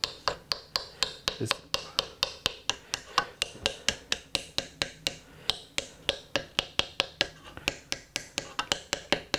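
Quick, light taps of a small metal distressing tool against a wooden plane handle, about four sharp clicks a second, denting the wood to age a repair.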